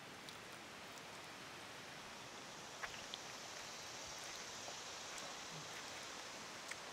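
Faint steady outdoor hiss, with a few soft clicks about three seconds in.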